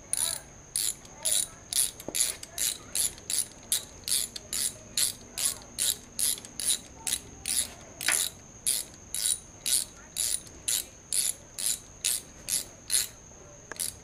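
Hand ratchet wrench worked back and forth in short, quick strokes, its pawl clicking in a regular burst about twice a second, turning a bolt on the timing-chain front of a Ford 4.6 2V engine.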